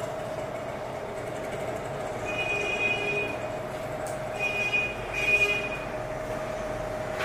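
Street traffic with vehicle horns sounding three short times, at about two and a half, four and a half and five seconds in, over a steady hum.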